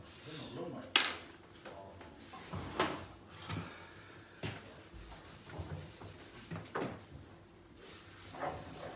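A few sharp knocks and clacks, the loudest about a second in, with quieter handling noises between them, like a door or panel being moved.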